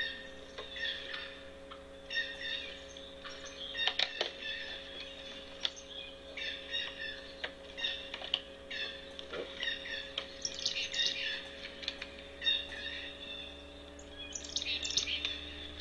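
Birds chirping and calling over and over, with a few sharp clicks and a faint steady hum underneath.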